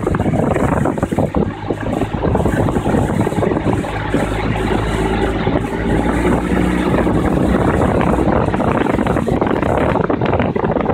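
Motorboat engine running steadily at a low hum, with wind buffeting the microphone throughout.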